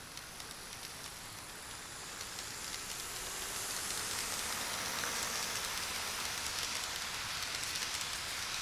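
Kato E233 Chuo Line model electric train running along its track, a steady rushing rattle of wheels on rail and motor. It grows louder over the first four seconds as the train comes past, then holds steady.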